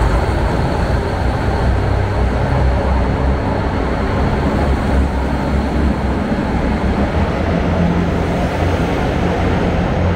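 A JR Hokkaido Kiha 261 series diesel express train moving along the platform close by: steady diesel engine hum and rolling wheel noise as the cars pass.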